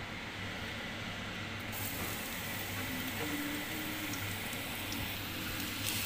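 Hot cooking oil sizzling in a nonstick frying pan, a steady hiss that turns brighter about two seconds in as minced garlic goes in to fry. Near the end a spatula starts stirring the garlic and the sizzle gets louder and sharper.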